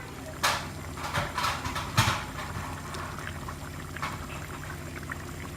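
Mutton simmering uncovered in the juices it has released, bubbling and sizzling in the pan, with a few sharp pops or clicks in the first two seconds.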